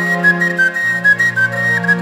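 Background music: a whistle-like lead melody of short, stepping notes over held low chords.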